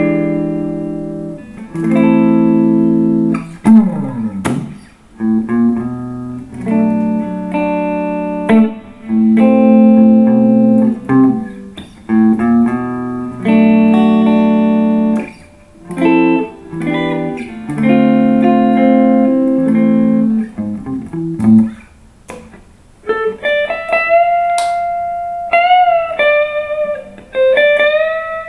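Epiphone Sheraton II semi-hollow electric guitar played clean through a Fender Blues Junior valve amp: a run of picked chords, each ringing out and fading. About three quarters of the way through it turns to single-note lead lines with bent, wavering notes.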